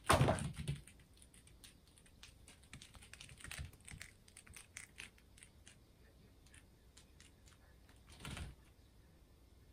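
Cats at play on a laminate floor: a thump as the kitten springs away, then light irregular clicking and pattering of claws and paws on the floor. About eight seconds in, a short flapping rustle of a cat shaking its head.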